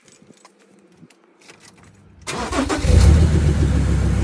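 A few faint clicks, then about two seconds in the Ford Ranger's engine cranks briefly, catches and settles into a steady idle.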